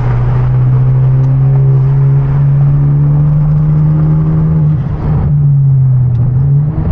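Hyundai Genesis Coupe 2.0T's turbocharged four-cylinder engine pulling steadily in gear, its drone climbing slowly. About five seconds in it breaks off briefly and sags, then the revs jump sharply near the end as a gear goes in, which the driver takes for an accidental shift into third.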